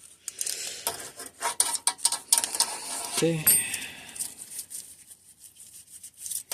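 Quick small metal clicks and clinks as bicycle disc brake parts and tools are handled on a workbench. They come thickest in the first three and a half seconds, then sparser and fainter.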